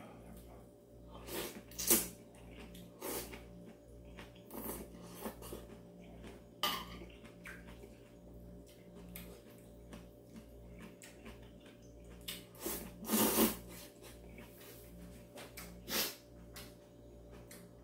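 A man slurping and chewing ramen noodles in irregular, noisy slurps, the longest about thirteen seconds in, with a puff of breath near the end.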